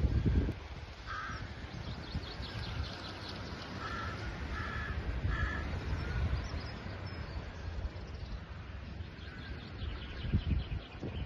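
A crow cawing several times in short, harsh calls, a few in quick succession, over a low rumble of wind noise on the microphone that is strongest at the very start.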